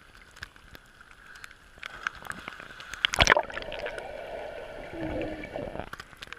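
Raindrops ticking on a pool's surface at the camera, then a loud splash about three seconds in, followed by muffled bubbling and gurgling heard underwater as a swimmer glides along the pool bottom.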